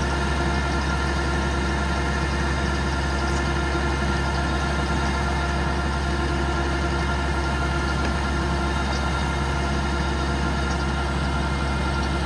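Combine harvester running steadily at constant speed: an even engine drone with several steady whining tones above it.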